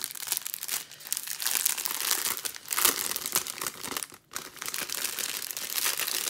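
Crinkling of small clear plastic bags of diamond-painting crystals being picked up and handled, with a brief pause a little after four seconds.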